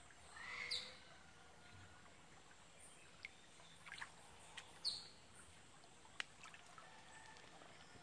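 Quiet tropical forest ambience with two short, downward-sweeping bird chirps, one about a second in and one near the middle, and a few faint clicks.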